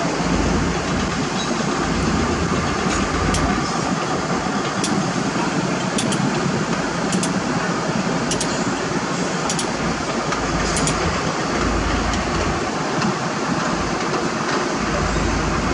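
A heavy diesel truck engine running steadily, with a low rumble that swells and fades. Sharp light clicks come about every second and a quarter through the middle.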